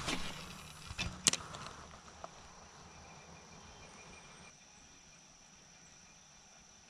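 Faint steady high-pitched insect chirring, with a few sharp clicks and knocks in the first second and a half.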